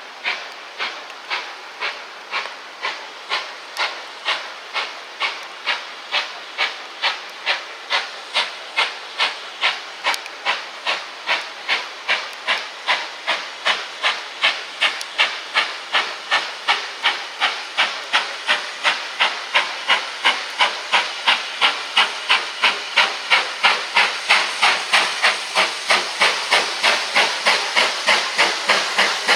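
GWR Large Prairie 2-6-2 tank locomotive 5199 working under steam, its exhaust chuffing in regular beats. The beats quicken from about one and a half to about three a second and grow steadily louder as the engine gathers speed.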